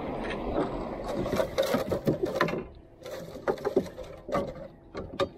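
Water splashing and slapping against a wooden canoe as it is paddled, with irregular knocks of wood on wood, in clusters, over a faint steady hum.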